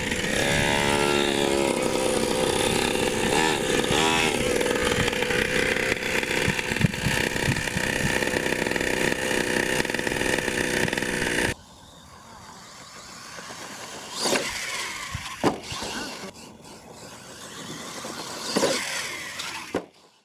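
Primal RC 1/5-scale monster truck's small two-stroke gas engine running hard, its pitch rising and falling as the throttle is worked. About eleven and a half seconds in, the sound drops suddenly to a much quieter stretch broken by a few sharp knocks.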